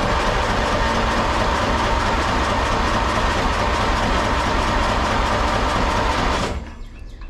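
Briggs & Stratton riding lawn mower engine cranking steadily on its electric starter, on choke, without firing; the cranking stops suddenly about six and a half seconds in.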